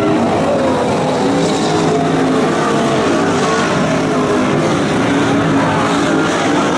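Several Super Stock dirt-track race cars' engines running hard together as the pack goes through a turn, their pitches rising and falling as each car lifts and accelerates.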